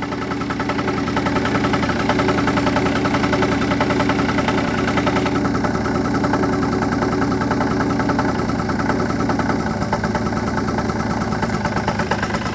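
Yamaha BW50 scooter's two-stroke single-cylinder engine idling steadily.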